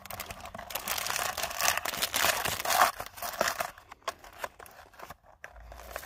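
Crumpled foil-lined snack wrapper crinkling in the hands while a cardboard Pocky box is handled. The crinkling is dense for about the first three seconds, then thins to scattered rustles and clicks.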